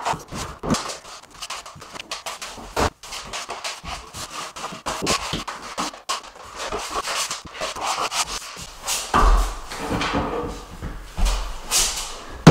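Notched trowel spreading wet flooring adhesive over a plywood underlay: scraping strokes, one after another in quick succession.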